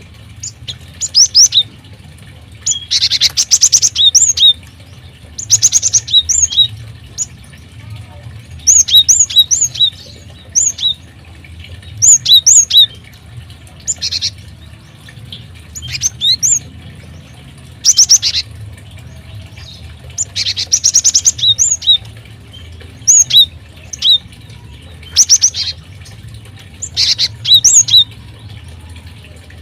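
Small birds in an aviary chirping: short bursts of rapid, high-pitched chirps and call notes every second or two, over a faint low hum.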